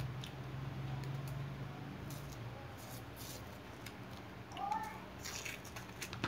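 Mouth sounds of eating a Cornetto ice cream cone: scattered wet smacks and clicks, with one short squeaky sound about two-thirds of the way through, over a steady low hum.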